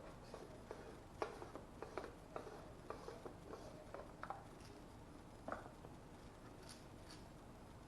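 Faint, irregular clicks, taps and rubbing of small hard objects being handled, sharpest about a second in and again at about five and a half seconds, then only a faint hiss.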